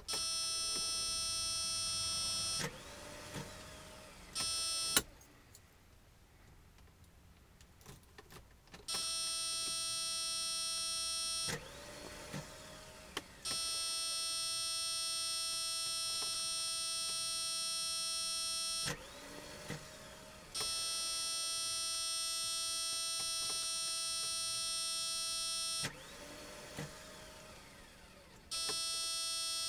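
Car electrical fault noise on a car that won't start: a steady, even-pitched electrical buzz cuts in and out several times for a few seconds each. In the gaps there are short rising whirrs, like a small motor spinning up, and clicks.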